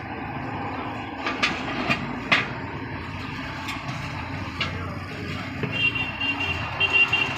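Steady rumble of road traffic with several sharp metal knocks and clinks from tyre-fitting work. A thin high tone sounds for about a second and a half near the end.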